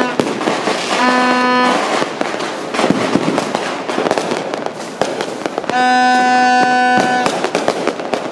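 Fireworks and firecrackers popping and crackling densely across a neighbourhood without a break. A horn blows a steady note over them twice, briefly about a second in and for longer about six seconds in.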